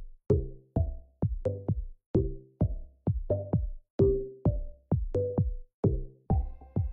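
Electronic background music with a steady beat of sharp hits, each followed by a short decaying note; sustained high tones come in near the end.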